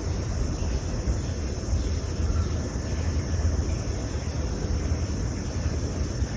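Summer street ambience: a steady, high insect drone over a low, uneven rumble.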